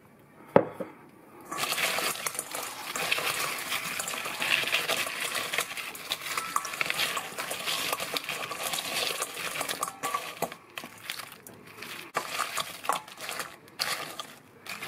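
Crumbed fried dill pickle spears being tossed by hand in a metal mixing bowl to coat them in seasoning: dense crackling and rattling of the crisp crust against the bowl, busiest for the first ten seconds or so, then sparser. A single sharp knock on the bowl comes about half a second in.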